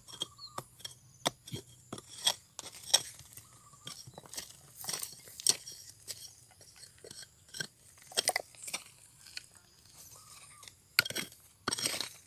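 A metal tool prying and scraping at crumbly dark shale, with irregular sharp clicks and crunches as flakes of rock break off and clink together. The clicks come thicker near the end.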